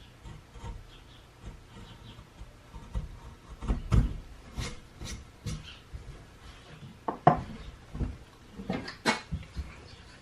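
Irregular knocks and scraping of wood being handled and worked by hand, with the loudest knocks about four seconds in and again in a cluster near the end.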